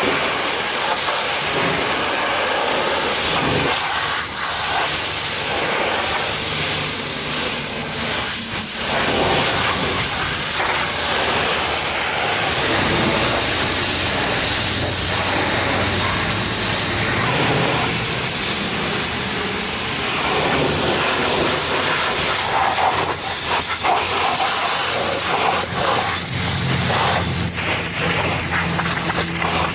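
Pressure washer spraying a muddy truck: a steady, loud hiss of high-pressure water that shifts in tone as the jet moves over the surfaces.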